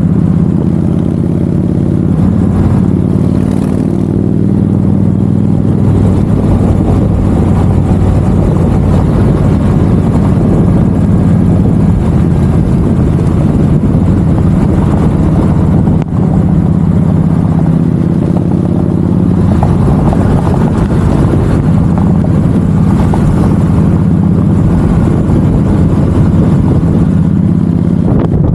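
Vehicle engines running steadily at cruising speed, a low engine drone that holds a fairly even pitch over a rushing road noise.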